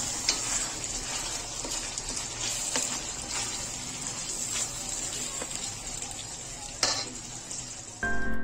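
Minced-meat curry sizzling in a frying pan while being stirred, with the spatula scraping and tapping on the pan now and then and one louder knock near the end. This is the stage of frying it down until the water dries off and the oil comes to the surface. Music starts just before the end.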